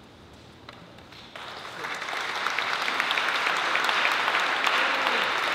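A brief hush after the final note, then audience applause breaks out about a second and a half in and quickly grows louder.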